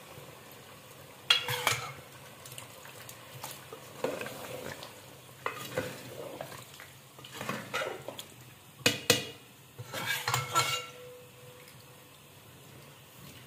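Steel ladle stirring a chicken and kaddu curry in a metal cooking pot: about six irregular scraping clanks against the pot, a few of them ringing briefly.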